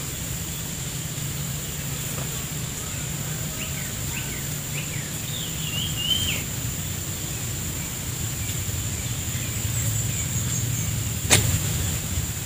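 Steady outdoor background noise: a constant low hum with a thin high whine over it. A few short bird chirps come a few seconds in, and there is a sharp click near the end.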